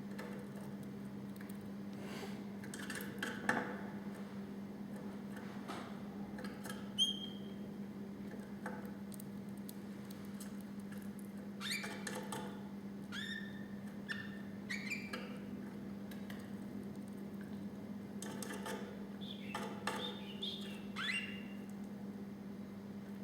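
Canary giving scattered short chirps, squeaky call notes and clicks rather than a full song, in loose clusters near the middle and toward the end, over a steady low hum.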